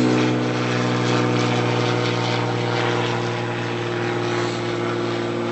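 Propeller aircraft engine droning steadily at one low pitch, with a strong hum and a row of even overtones.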